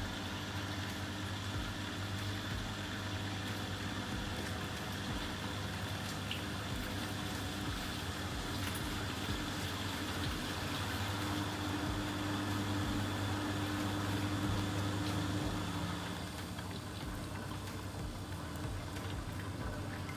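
Vestel front-loading washing machine running with a steady motor hum and water sloshing and gurgling inside, late in a cycle held up by a suds lock. A hum gets a little louder about midway, then eases near the end.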